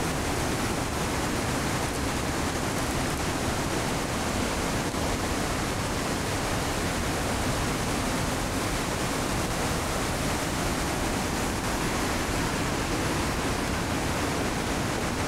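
Steady, even rushing noise with no single sounds standing out.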